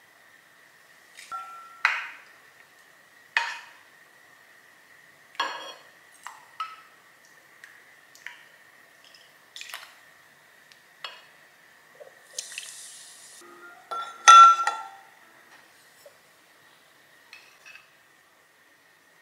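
Spoon clinking and tapping against stoneware bowls and a pot in about a dozen separate, sharply ringing clinks, the loudest about two-thirds of the way through. A short liquid hiss comes just before it, as soup is served.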